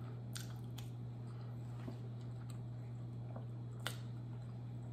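Quiet room tone: a steady low hum with a few faint, sharp clicks, the clearest about four seconds in.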